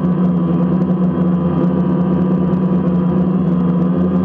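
DJI Phantom quadcopter's four motors and propellers buzzing steadily in flight, heard from the camera mounted on the drone itself: a steady hum with a strong low tone and a row of overtones.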